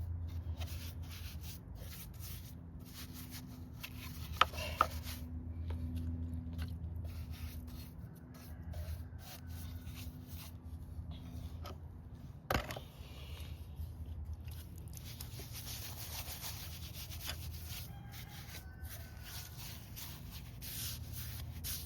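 Paintbrush wiping and scrubbing diesel over a chainsaw's greasy housing in quick, repeated strokes, to loosen hardened old grease. A sharp knock comes about four seconds in and another about halfway through.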